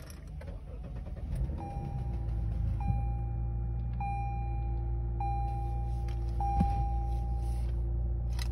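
2017 Lexus GS350's 3.5-litre V6 starting and settling into a steady idle. A dashboard warning chime sounds five times, a little over a second apart, then stops.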